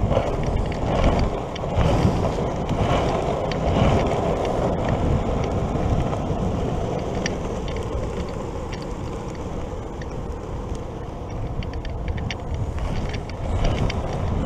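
Longboard wheels rolling steadily over a tarmac path, with wind rumbling on the microphone and a few faint ticks later on.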